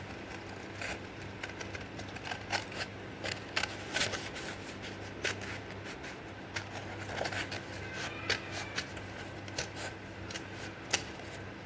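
Scissors cutting a circle out of a sheet of A4 paper: irregular short snips and paper rustling, over a faint steady low hum.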